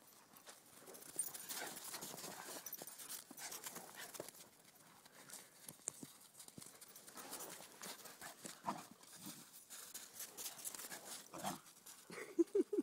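A standard poodle and a Portuguese water dog romping in snow: paws scuffing and crunching through it, with a quick run of short dog vocal sounds near the end.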